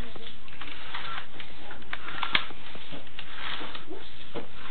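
Steady hiss with a few scattered faint clicks and scrapes as a sewer inspection camera's push cable is pulled back through the drain line.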